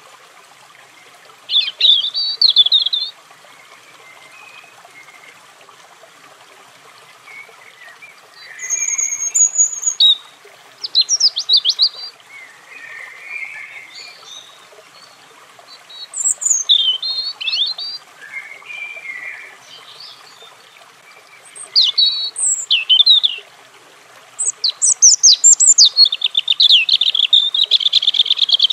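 European robin singing: about six short, high, rapid warbling phrases separated by pauses of a few seconds, the last a longer fast trill near the end.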